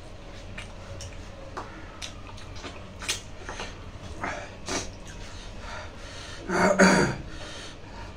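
People eating rice and pork by hand from plastic plates: scattered soft clicks, smacks and fingers scraping the plates, with one louder short burst from a mouth about six and a half seconds in.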